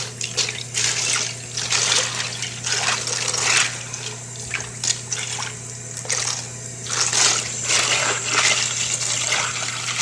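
Tap water running into a sink and splashing unevenly over plastic keycaps being rinsed, in irregular surges, with a steady low hum underneath.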